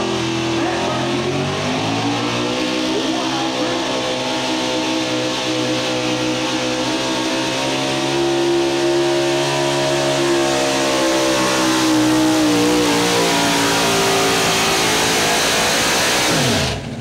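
Super Stock 4x4 pulling truck's engine running hard at high revs under full load, dragging a weight-transfer sled. Its pitch sags, climbs to a sustained high run, then falls away, and the sound cuts off sharply near the end.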